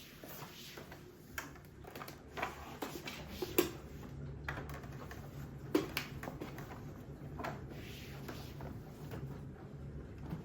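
Scattered light clicks and knocks of small objects being handled, over a steady low hum.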